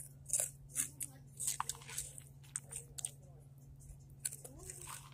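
Someone biting and chewing a crunchy hot chip close to the microphone: irregular crisp crunches, several a second, over a steady low hum.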